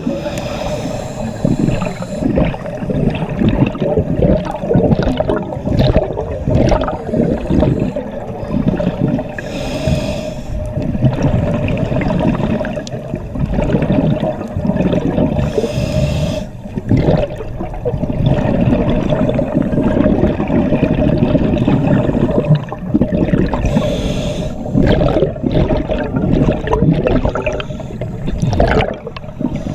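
Scuba divers' regulator breathing heard underwater: muffled gurgling and bubbling, with a rush of exhaled bubbles every several seconds.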